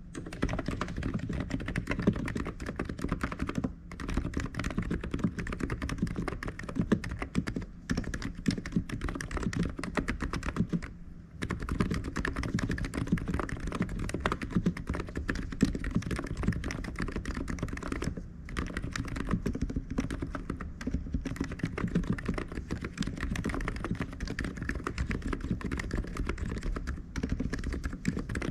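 Typing on an ABKO KN30BT keyboard: a steady stream of rapid key clicks, broken by a few short pauses.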